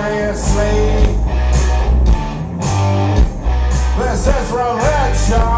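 Live rock band playing: electric bass and electric guitar over a steady beat, with a vocal or guitar line bending in pitch about four seconds in.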